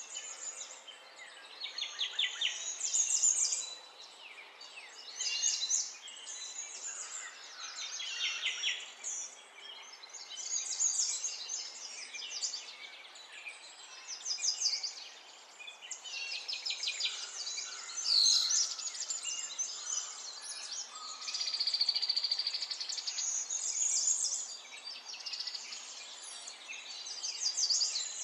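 Birdsong: chirps and fast trills in short phrases that come every second or two, over a faint steady hiss.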